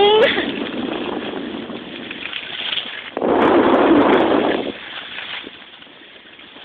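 Wind rushing over a mobile phone's microphone during a downhill ski run, with a louder surge of noise about three seconds in that lasts about a second and a half, then dropping quieter.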